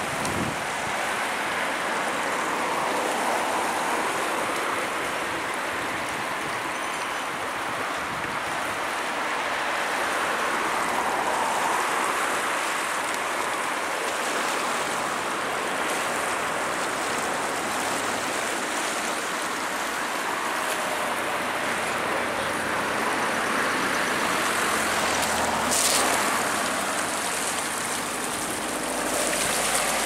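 Steady rushing of the Aisne river in flood: fast, high, muddy water swirling past the quay wall.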